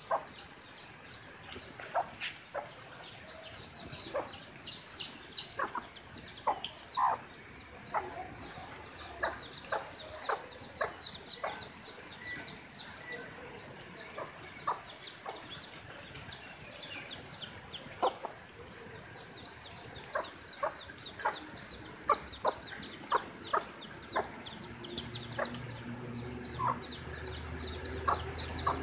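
A hen clucking softly while her chicks peep over and over. The chicks make quick, high, downward-sliding peeps and the hen gives short, lower clucks. A low steady hum comes in near the end.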